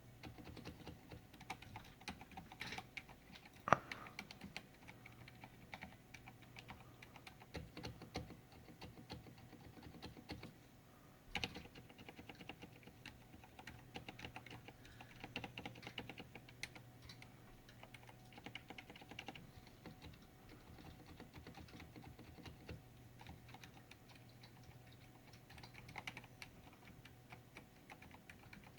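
Filco Silent S tenkeyless mechanical keyboard being typed on gently, one-handed: soft, irregular key presses, with a couple of sharper key strikes about 4 and 11 seconds in.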